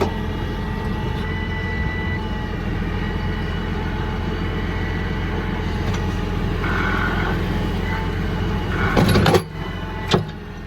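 Farm vehicle's engine running steadily while driving. About nine seconds in there is a short loud burst of noise, after which the engine sound drops away, then a single sharp knock.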